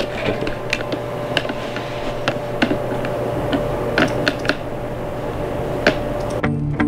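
Scattered, irregular light clicks and taps over a steady hum, with music starting near the end.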